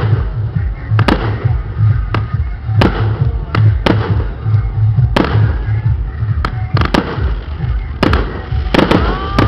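Aerial fireworks shells bursting, a dozen or more sharp bangs at uneven intervals, over a dense low rumble. Near the end a pitched, whistle-like tone bends up and then settles.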